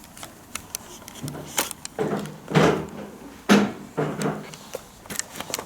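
Irregular clicks and knocks from a key and a locked door being worked: a small child trying to turn the key in the lock and rattle it open.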